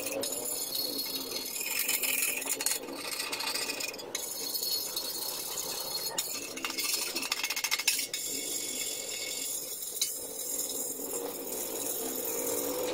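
Hand-tool work on metal: rattling and rubbing, with a quick run of rapid clicks about seven seconds in.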